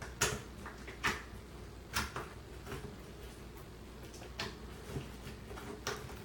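Slime being handled and stretched by hand, giving irregular sticky clicks and pops, about five sharp ones among smaller crackles.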